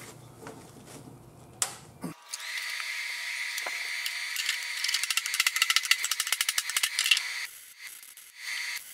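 Electric arc welder tack welding a steel patch plate onto a mower deck: a steady crackling buzz with a high whine. It starts about two seconds in, runs for about five seconds and stops near the end.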